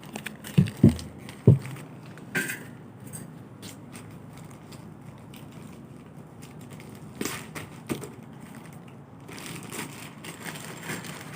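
Three loud, low thumps in the first second and a half, then scattered crackling and clicks, denser near the end: close handling noise.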